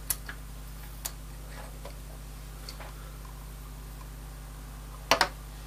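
Cheap 15,000-volt step-up arc generator kit running, giving a steady low electrical hum, with a few sharp ticks and a louder double click about five seconds in.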